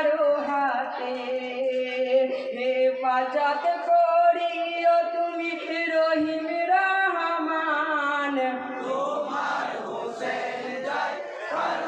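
A group of men singing a Bengali marsiya, a Muharram lament for Husain, together in unison with long held notes. Near the end the singing breaks into the group shouting together.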